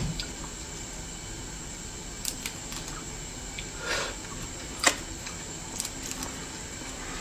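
A few light clicks and taps from handling cooked lobster shells, over a steady low hiss; the sharpest click comes about five seconds in.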